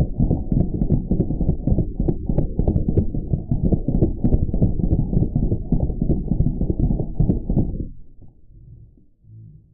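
Deep, slowed-down rumbling with scattered irregular clicks, as in audio stretched to match slow-motion footage; it cuts off sharply about eight seconds in, leaving faint low thuds.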